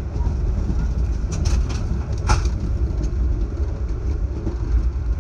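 Steady low rumble of an Amtrak passenger train running at speed, heard from inside the passenger car, with a few short clicks and rattles between one and two and a half seconds in.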